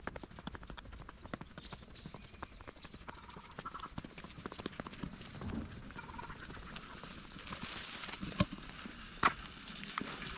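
Deer hooves clicking on hard ground as the deer walk: many small irregular clicks, with two louder knocks near the end.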